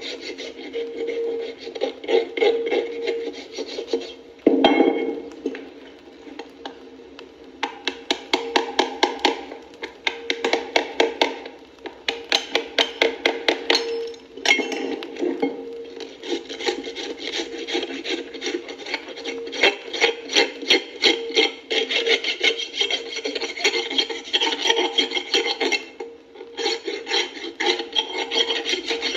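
Quick repeated rasping strokes, a rasp or file worked back and forth, in runs broken by short pauses.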